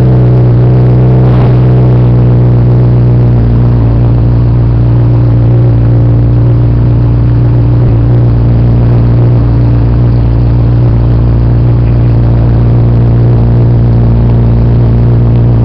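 Ferrari F40's twin-turbo V8 idling loudly and steadily at one even pitch.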